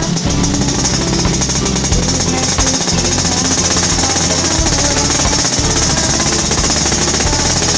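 Tuned two-stroke Vespa scooter engine running steadily through a racing exhaust, its firing a rapid, even rattle, over background music.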